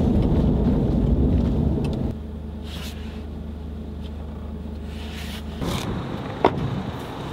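Steady road and engine noise heard inside a car's cabin at highway speed, dropping suddenly about two seconds in to a quieter, steady low hum. A single sharp click comes near the end.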